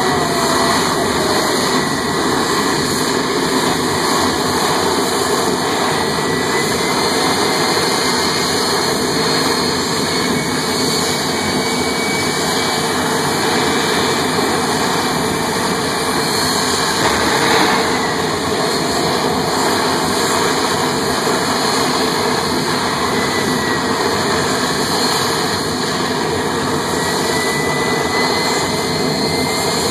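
Jet engines running steadily at full power with flames blasting from them: a loud, continuous roar with a faint rising whine now and then.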